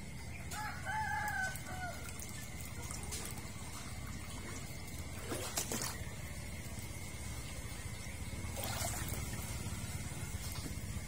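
A rooster crows once about half a second in, a single wavering call lasting over a second, over a steady low rumble. A few sharp knocks follow, the loudest about five and a half seconds in.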